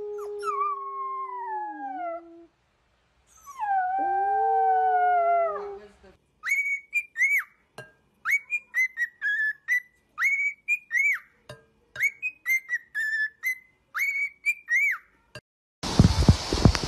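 Two long howls from a pale fluffy pup, each falling in pitch at its end. Then a cockatiel whistles a long string of short chirping notes. A loud rushing noise cuts in near the end.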